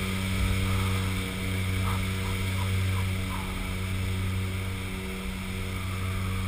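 Steady drone of a skydiving jump plane's engines and propellers heard inside the cabin, an even hum with several constant tones over a rushing noise.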